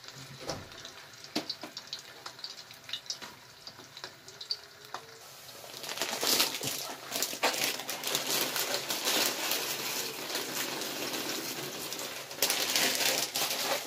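Potato sticks deep-frying in a pot of hot oil: scattered pops and crackles at first, then from about six seconds in a dense, loud sizzle.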